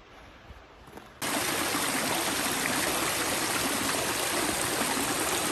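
A mountain stream rushing steadily over rocks, cutting in abruptly and loudly about a second in after a quiet stretch.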